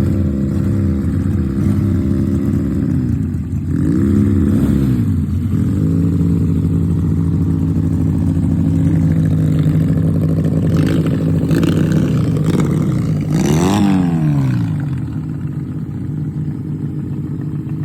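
Twin-cylinder engine of a mini motorbike running, blipped up and let fall back twice, then settling to a lower idle near the end.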